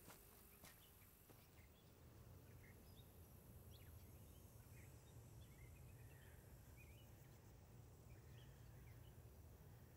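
Near silence: faint woodland ambience with sparse, faint bird chirps over a steady low hum.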